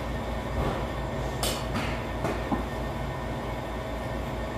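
Steady low mechanical rumble with a fast, regular throb, and one short sharp sound about a second and a half in.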